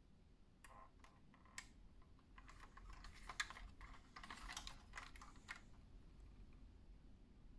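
Faint handling noise from a diecast model car being moved about in the hand: a quick run of small clicks and rustles that starts about half a second in and dies away after about five and a half seconds.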